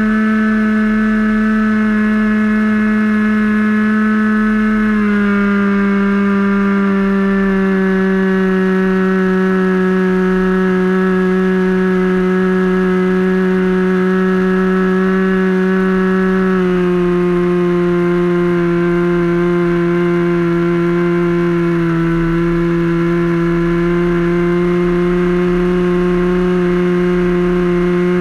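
Sig Kadet LT-40 RC trainer's glow engine running in flight, heard up close from on board: a steady high buzz whose pitch steps down twice, about five seconds in and again past the middle, as the revs drop.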